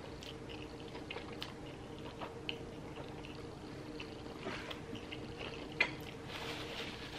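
Close-miked wet mouth sounds of noodles being chewed, with small smacking clicks and one sharper click nearly six seconds in. Near the end, a paper napkin rustles as the mouth is wiped.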